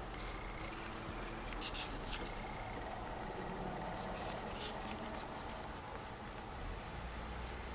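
Two sugar gliders eating an apple slice: small, scattered wet clicks of chewing and licking, several close together about two seconds in and again about four seconds in.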